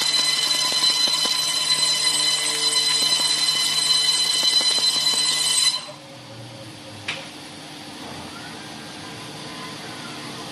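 Band saw cutting machine running with a steady high-pitched whine over a hiss as it cuts corrugated cardboard. About six seconds in the sound drops away abruptly to a low hum, and a single click follows about a second later.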